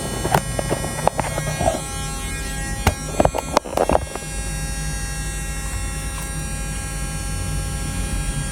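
LED TV speaker giving a steady electrical hum and buzz with a faint high ringing, in place of any audio: the set's sound section is faulty and the speaker puts out only this noise. Several clicks and knocks sound in the first four seconds.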